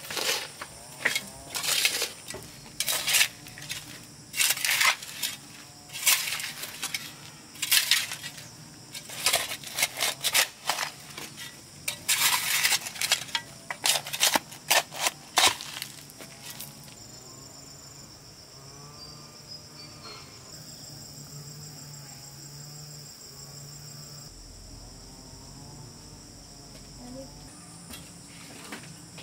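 Brick-laying work: a run of sharp clinks and knocks of hand tools striking brick and mortar, a dozen or more over the first half. After that the work stops and insects keep up a steady high-pitched drone.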